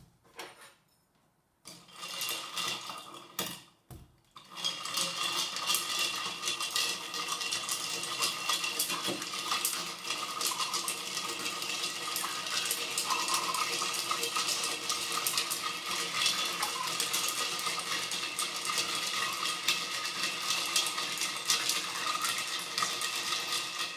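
Ice cubes in salted ice water being stirred in a glass beaker, a continuous fast clinking and rattling of ice and the stirrer against the glass. It starts about four seconds in, after a couple of knocks.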